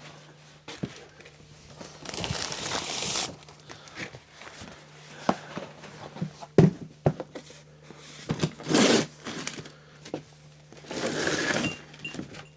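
Hand-work on a recumbent trike during a front wheel swap: scattered clicks and knocks of tools and parts, with three longer rustling, scraping stretches, over a faint steady low hum.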